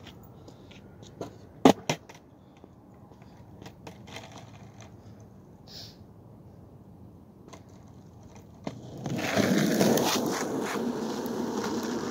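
Skateboard on asphalt: two sharp clacks of the board striking the pavement about two seconds in. From about nine seconds in, the wheels rolling loud and close.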